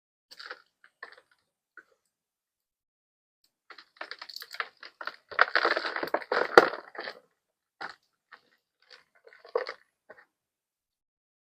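Something dry and crunchy being crushed: scattered crackles at first, then a dense run of crunching about four seconds in, loudest around the sixth second, thinning out to a few last crackles.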